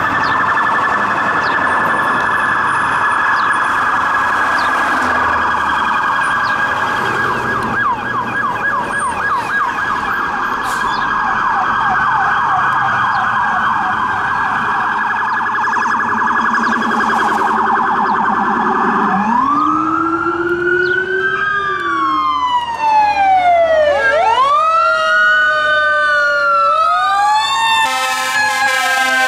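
Police SUV electronic sirens wailing in a rapid warble. About 19 s in, the sound changes to a heavy rescue fire truck's siren, slow rising and falling wails with two tones crossing each other. A short horn blast comes near the end.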